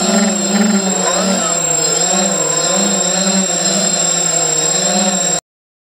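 ZMR 250 racing quadcopter's four brushless motors and propellers whining loud and close on the onboard camera, the pitch rising and falling with quick throttle changes. The sound cuts off abruptly about five seconds in, where the onboard camera's battery died.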